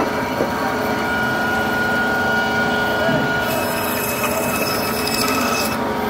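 Band saw running with a steady whine while cutting a large grass carp. About three and a half seconds in, a harsher hiss joins for about two seconds.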